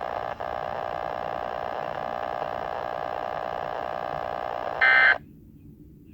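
A steady electronic alarm-like tone with many pitches sounding together. It ends about five seconds in with a brief, louder, higher burst, leaving a faint low hum.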